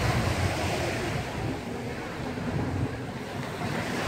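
Sea surf washing steadily on a beach, with wind on the microphone.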